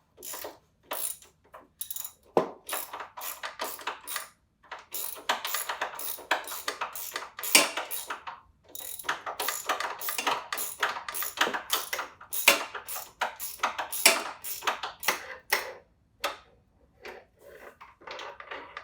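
Socket ratchets clicking in quick runs as the top mounting bolt of a rear shock is backed out, with short pauses between runs.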